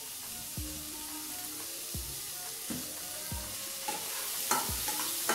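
Paneer cubes and green peas sizzling in oil in a kadai, a steady frying hiss broken by a few dull knocks. From about four seconds in, a spatula stirs and scrapes through the pan.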